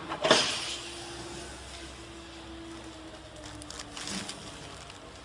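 Flow wrap packaging machine running with a steady low mechanical hum, and a sharp clack just after the start as its adjustment handle is worked.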